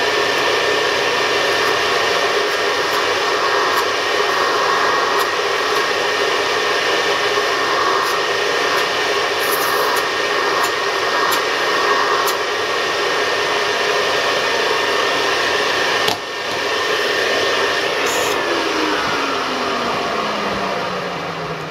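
Nilfisk GM80 canister vacuum cleaner running with a steady roar and high motor whine, its dust bag full. A sharp knock comes about 16 seconds in. About 18 seconds in the motor is switched off, and the whine falls steadily in pitch as it spins down.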